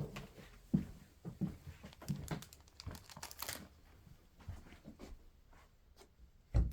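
Wrapping and packaging crinkling and rustling as it is handled, with a few tearing sounds, then one dull thump near the end.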